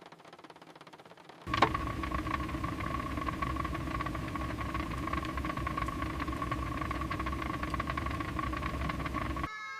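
Noodle pot cooking on a camp stove: a steady hissing and rumbling with a low hum. It starts suddenly with a sharp click about a second and a half in and cuts off abruptly near the end.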